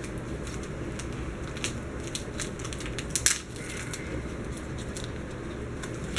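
Wrapping paper crackling and crumpling as a present is handled and unwrapped, in scattered short crackles with a louder burst about three seconds in.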